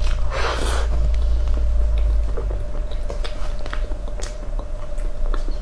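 Close-up mouth sounds of eating soft cream cake: a wet squelch about half a second in, then small clicks and smacks of chewing. A metal spoon clicks in the plastic tub about four seconds in. A steady hum runs underneath.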